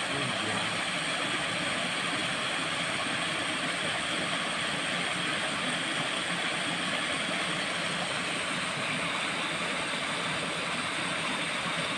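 Steady rushing of water from a small waterfall, an even, unbroken noise.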